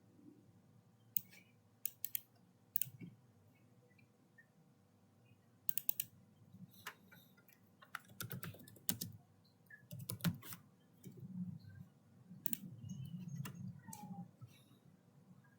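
Scattered clicks of a computer mouse and keyboard, several in quick pairs, with soft low bumps of handling in the second half.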